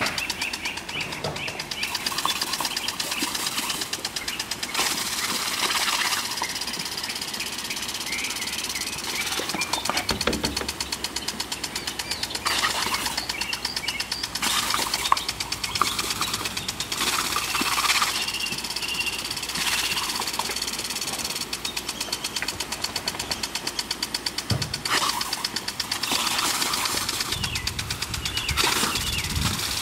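Lawn sprinkler head spraying, with a fast, steady ticking and, every few seconds, a louder hiss of water spray.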